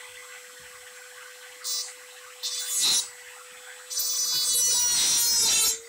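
BORT BCT-140 rotary tool running with a small cut-off disc, its motor giving a steady whine, while the disc bites into a thin duralumin plate in three bursts of harsh grinding hiss. The last burst is the longest and loudest, starting about four seconds in.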